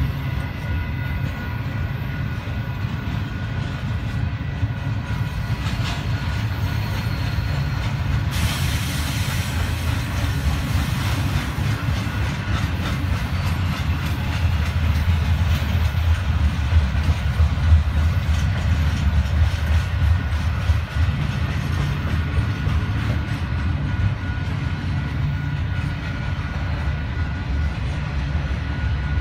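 Double-stack intermodal freight cars rolling past on the rails, a loud steady rumble of wheels on track with faint clickety-clack. A hiss joins about eight seconds in.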